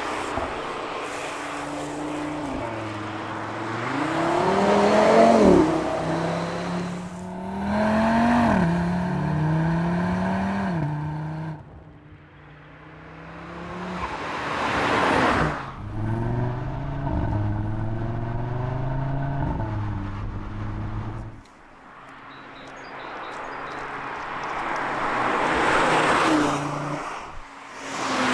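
Audi RS 3's turbocharged five-cylinder engine and exhaust accelerating hard through the gears, the pitch climbing and dropping back at each upshift. Between runs the car swells past and fades away.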